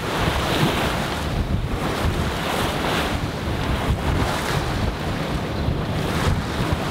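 Strong wind buffeting the microphone over the rush and splash of choppy waves against a Sabre 36 sailboat's hull as it sails through rough water, spray breaking off the bow. The noise surges and falls about once a second with the gusts and waves.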